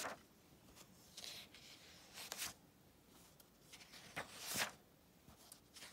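Glossy magazine pages being turned by hand: a few soft paper swishes and rustles, the loudest about four seconds in.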